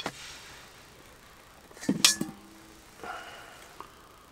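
Kitchen utensils clinking against a pot and dishes, with a louder knock about two seconds in that rings briefly.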